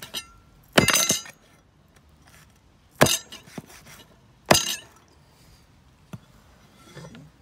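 Kitchenware clinking: sharp ringing clinks a second or two apart, the first a short clattering cluster about a second in.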